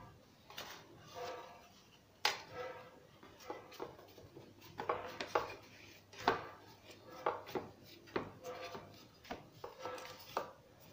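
Sheets of phyllo (gullash) dough being laid into a greased metal baking tray and pressed flat by hand. Sharp knocks and clatters of the metal tray are scattered throughout.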